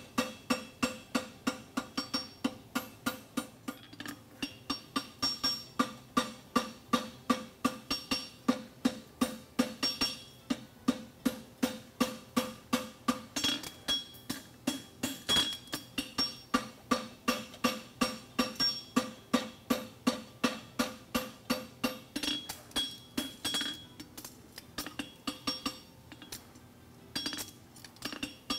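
Farrier's hammer striking a red-hot steel horseshoe over the anvil horn in a fast, even rhythm of blows, each with a metallic ring from the anvil, as the shoe is bent around the horn.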